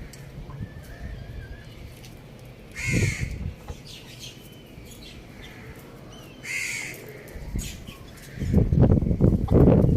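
Two short, harsh bird calls about three and a half seconds apart. From about eight and a half seconds in, a loud crackling rustle takes over.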